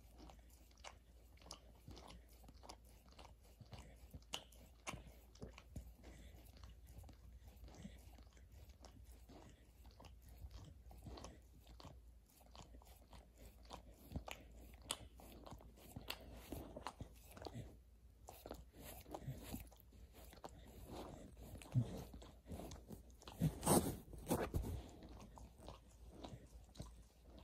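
Dog chewing and crunching on something, a steady run of small crunches and clicks, with a louder spell of bites near the end.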